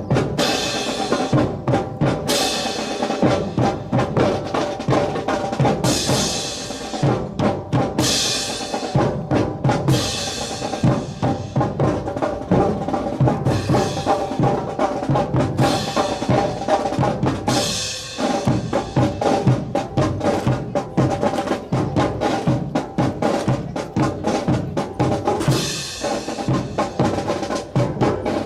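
Marching drum music, with snare and bass drums in a fast, busy cadence over sustained band tones, and cymbal crashes every few seconds, most of them in the first half and one more near the end.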